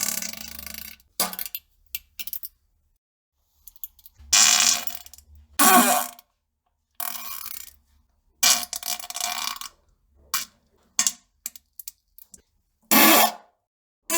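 A string of separate fart sounds, some short and some about a second long, with short silences between them.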